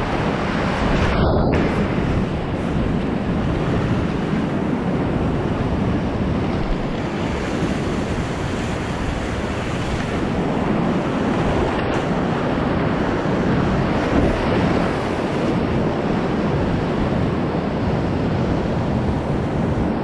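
Whitewater rapids of the Tallulah River rushing close by, loud and steady, a dense churning water noise with no let-up.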